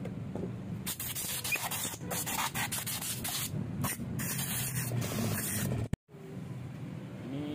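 Hissing spray in several bursts of a second or so each, over a low steady hum, cutting off abruptly about six seconds in.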